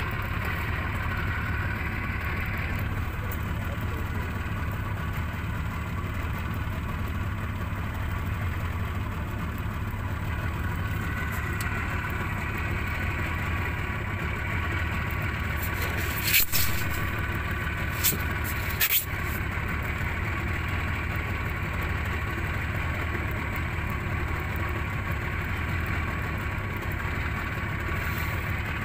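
A small boat's 30-horsepower outboard motor running steadily, with a few short sharp knocks about two-thirds of the way through.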